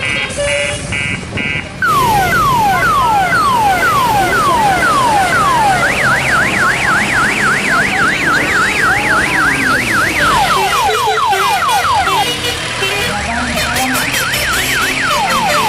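Electronic siren sounding a changing sequence of patterns: repeated falling whoops starting about two seconds in, then a fast up-and-down warble, then quicker falling chirps and falling whoops again near the end.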